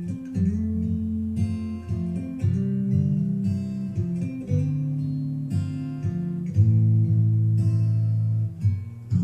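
Strummed acoustic guitar playing an instrumental passage of a song, coming in suddenly right at the start after a near-silent pause, with steady chord strokes and a full low end.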